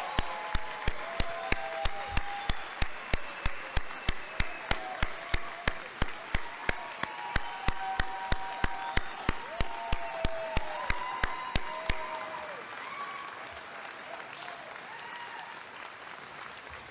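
Crowd applauding and cheering, with whoops rising above the noise. Over it one set of sharp claps keeps a steady beat of about three a second and stops about twelve seconds in. The cheering then slowly dies down.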